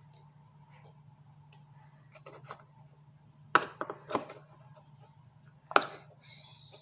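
Homemade slime being handled on a tabletop: a few faint ticks, then three sharp slaps or clicks about halfway through and a short hiss near the end, over a steady low hum.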